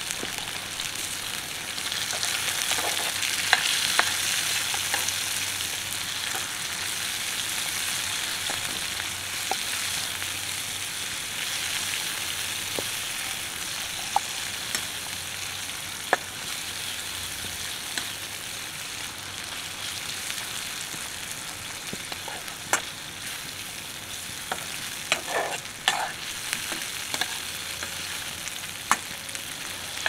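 Chopped onions sizzling steadily in hot oil in a frying pan on a portable gas stove, stirred with a metal turner that gives a few sharp taps and scrapes against the pan.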